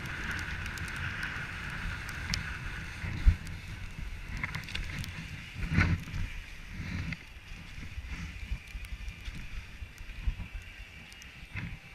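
Skis sliding on packed snow with a steady scraping hiss, and wind rumbling on the helmet-mounted camera's microphone. A sharp knock about three seconds in and a louder thump near six seconds.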